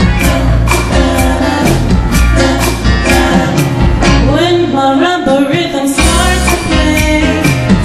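Loud music with a sung melody over a steady beat; the bass drops out about four seconds in and comes back about two seconds later.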